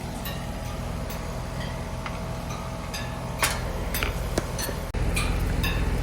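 Heat pump running with a steady low hum, over a regular ticking of about three ticks a second and a couple of sharp clicks. About five seconds in, the hum gets suddenly louder.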